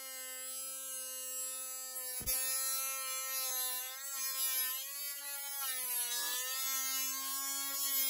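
A steady buzzing drone held on one pitch, wavering a little and dipping briefly about six seconds in, with a sharp click about two seconds in.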